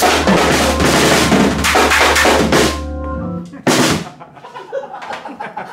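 Pearl drum kit playing a loud fill with cymbals over a held low keyboard chord, breaking off about three seconds in. One more hit follows just before four seconds, then only light taps.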